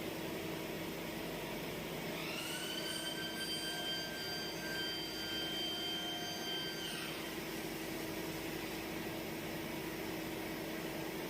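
Steady hum of workshop machinery. About two seconds in, a motor's high whine rises in pitch, holds steady for about five seconds, then winds down.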